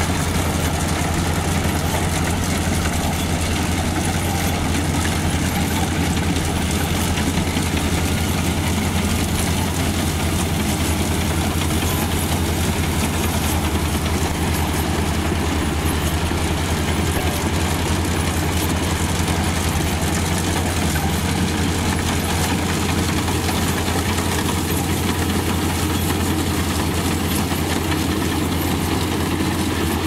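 Kubota rice combine harvester at work, its diesel engine running steadily with the cutting header and reel turning. A constant low, even drone with no change in speed.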